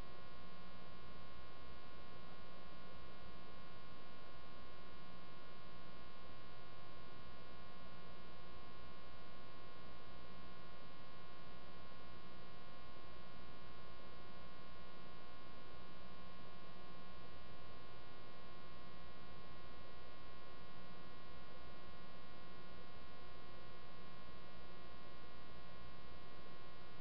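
Steady electrical mains hum with a buzzy edge, unchanging in pitch and level.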